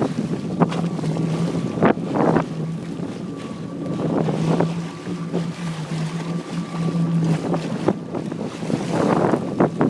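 Jet ski engine idling steadily, with wind buffeting the microphone and splashes of water coming in short irregular rushes.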